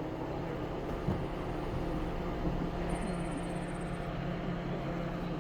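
A vehicle engine running steadily, with a low even hum.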